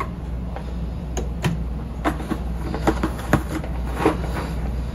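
Lidded pot of water at a boil on an electric cooktop: a steady low hum with scattered, irregular light ticks and taps.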